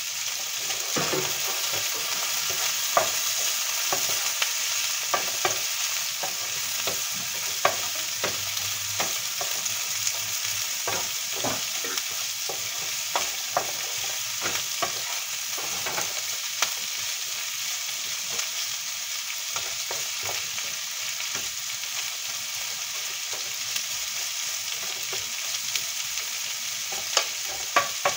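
Beef frying in a pan with a steady sizzle while being stirred, the spatula scraping and clicking against the pan. The clicks come often through the first half and thin out later.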